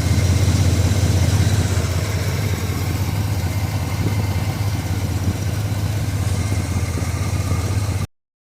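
Square-body GM truck's engine idling steadily.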